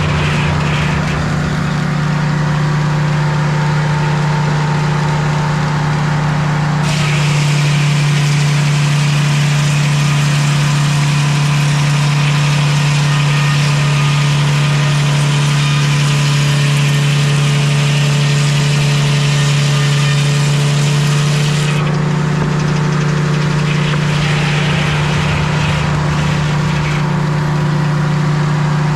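Sawmill engine running steadily, with a hiss from the blade cutting through a maple log from about seven seconds in until about twenty-two seconds in.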